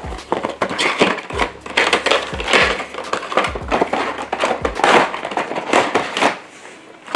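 Cardboard box and plastic packaging of an action figure being opened and handled, with irregular crinkling and scraping and a few dull low thumps.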